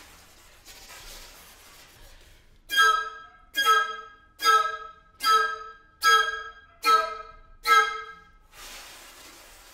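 Recorder trio playing: a soft, breathy, airy hiss, then seven short, loud repeated notes about 0.8 seconds apart, each dying away quickly, then the airy hiss again near the end.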